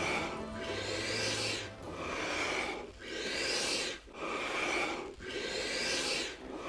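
Rhythmic whooshing swells of noise in the soundtrack, about one a second, each rising in pitch and then cutting off, as a low held note of the music dies away in the first second or two.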